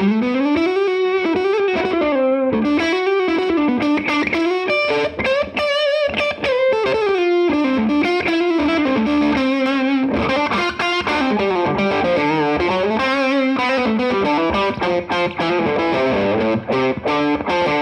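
Electric guitar played through a Mesa/Boogie TransAtlantic two-EL84 tube amp with overdrive: a continuous lead line of single notes with slides and bends, ending on a held, ringing chord.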